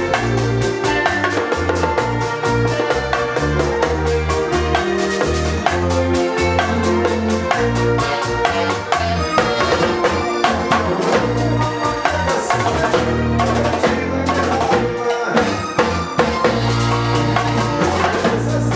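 A live band playing uptempo music, with drums and percussion driving a steady beat over bass notes that change under keyboard and guitar.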